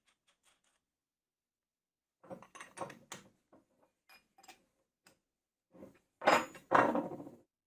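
Light metal clicks and clinks of a steel open-end wrench, nut and washer being handled while a bolt is tightened through a belt-grinder wheel, with two louder knocks near the end as the wrench meets the wooden workbench.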